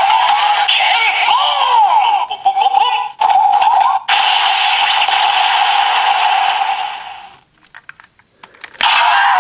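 Electronic sound effects and music playing through a toy's small speaker, wavering up and down in pitch. It breaks off about seven seconds in, leaving a few clicks, then starts again with a click near the end.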